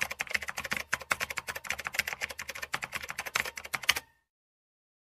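Typing sound effect: a rapid run of keystroke clicks, about ten a second, stopping abruptly about four seconds in.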